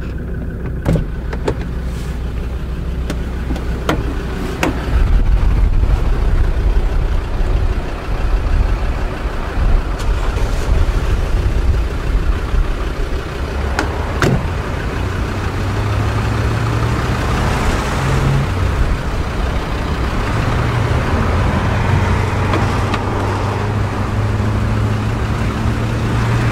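Car doors being worked on a Land Rover Discovery 2: several sharp clicks and knocks of handles and latches over a steady low rumble that swells for a few seconds about five seconds in.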